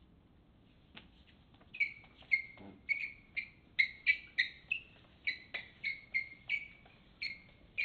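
Repeated short, high-pitched squeaks, about two a second, starting about two seconds in.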